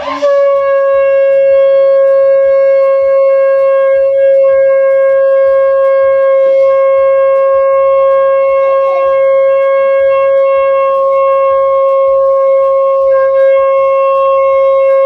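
Conch shell (shankha) blown in one long, steady, loud note with a rich row of overtones, sounded with a sharp start and held unbroken for about fifteen seconds.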